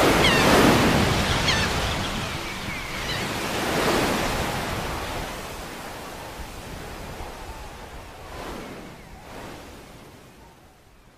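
Ocean waves washing in and out, three slow swells of surf, fading gradually toward silence as the song's outro ends.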